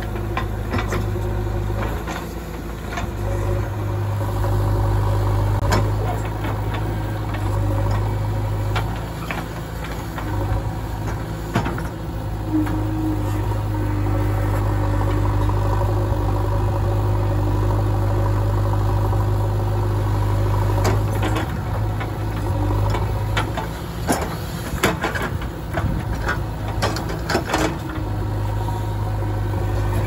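JCB 3DX backhoe loader's diesel engine running as the backhoe digs soil, its steady note dipping briefly several times as the load changes. Sharp clanks from the bucket and arm come now and then, most of them close together near the end.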